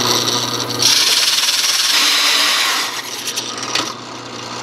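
A drill-driven hole saw cutting into plywood: the motor runs with a steady hum while the teeth rasp through the wood. The cutting is loudest from about one second in to about three seconds in, then eases.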